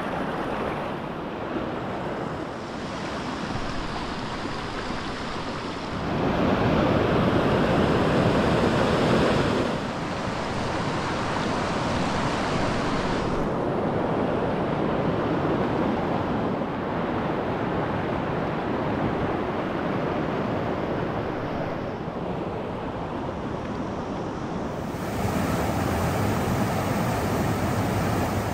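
Mountain stream rushing over boulders and small cascades, a steady wash of water noise. It grows louder for a few seconds about a fifth of the way in and again near the end.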